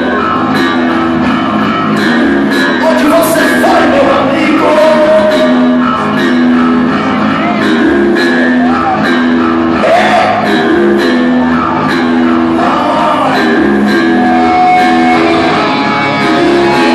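Rock band playing live, with guitars and a singer.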